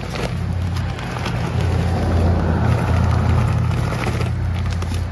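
An engine running with a steady low hum, growing louder for a couple of seconds in the middle, like a vehicle passing close by.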